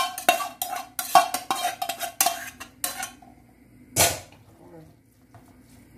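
A metal slotted spoon scraping and knocking against metal cooking pans as cooked ground meat is scraped from a smaller pan into a larger pot. A rapid string of clanks with a ringing pan tone, then one louder clank about four seconds in before it goes quieter.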